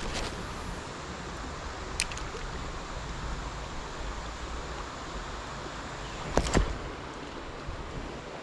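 Steady rushing noise of flowing river water, broken by a few short knocks, the loudest about six and a half seconds in.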